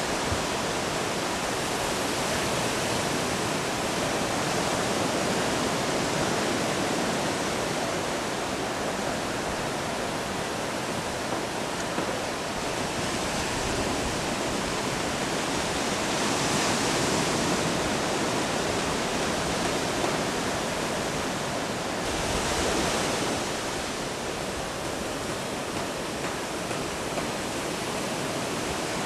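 Ocean surf washing onto a beach: a steady rush of breaking waves, with louder breakers about halfway through and again a few seconds later.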